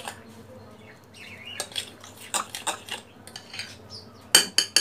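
A spoon stirring and scraping thick semolina batter in a bowl. Near the end comes a rapid run of sharp clinks of the utensil against the bowl.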